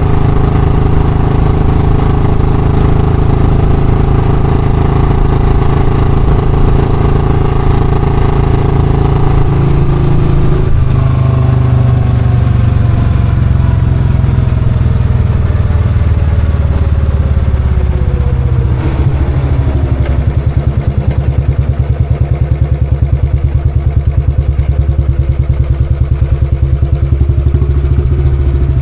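Royal Enfield Classic single-cylinder engine running steadily at raised revs. About ten seconds in, the revs start sinking slowly for around ten seconds, and it settles into an idle with an even, separate beat on each firing stroke.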